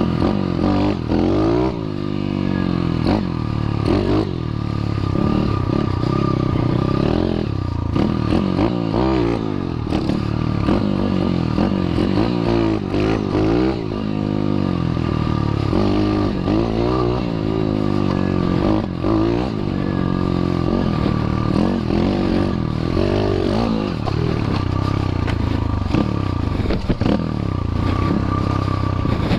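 Small pit-bike-style dirt bike engine revving up and down over and over as it is ridden, its pitch rising and falling every second or two, with rattling and clatter over a rough gravel track.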